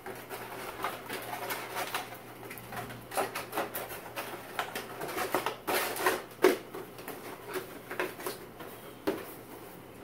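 Plastic clamshell packaging and a cardboard toy box being handled: irregular crinkles, clicks and knocks, the loudest knock about six and a half seconds in, over a faint steady hum.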